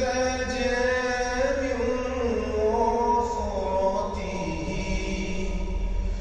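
Background music: a chanted vocal melody of long held notes.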